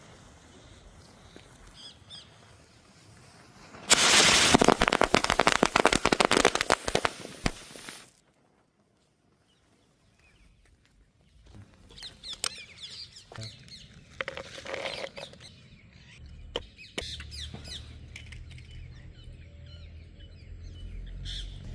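A string of small firecrackers strapped to a toy RC car goes off in a rapid, dense run of loud cracks lasting about four seconds, then stops abruptly. Birds chirp faintly before and after.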